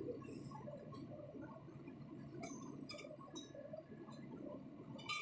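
Large metal-turning lathe running, a low steady rumble with a few light metallic clinks, the sharpest near the end.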